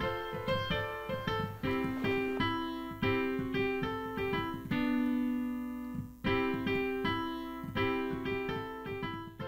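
Background music on a keyboard: a light tune of quick notes over a bass line, with one chord held about halfway through.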